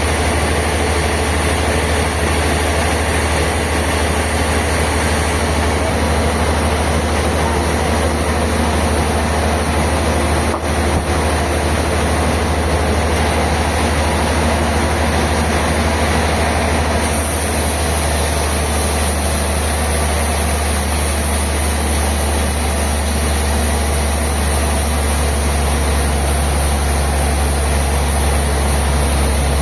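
Heavy sawmill machinery running steadily, with a strong low engine hum under a wide, even noise. The sound shifts abruptly about halfway through.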